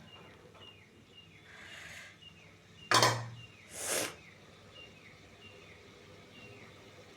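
A small bird chirping repeatedly in the background, short falling chirps about twice a second. About three seconds in there is a loud sharp knock, then a brief hissing burst a second later.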